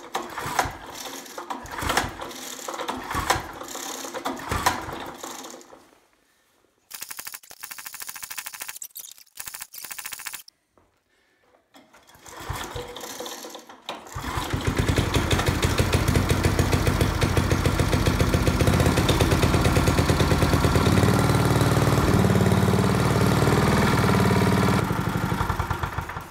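Briggs & Stratton single-cylinder engine on a tiller, cranked by hand with the recoil pull starter in several short rattling attempts. About fourteen seconds in it catches and runs steadily with a fast, even firing beat, then dies away near the end. It is running on a new flywheel-triggered coil that replaced the faulty points ignition.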